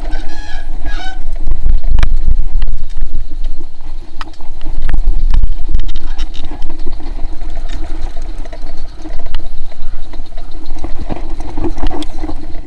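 Mountain bike rattling and jolting down a dirt singletrack, with frequent sharp knocks as it hits bumps. Heavy wind buffets the microphone.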